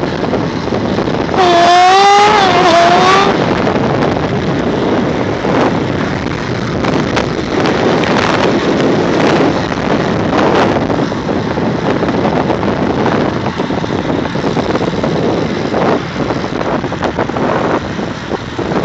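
Steady wind rush over the microphone of a camera riding along on a road bicycle. About a second and a half in there is a brief loud call whose pitch wavers, lasting under two seconds.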